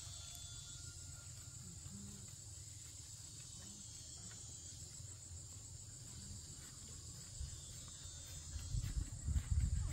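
Insects chirring in a steady, high-pitched drone over a low rumble, with a few louder low thumps near the end.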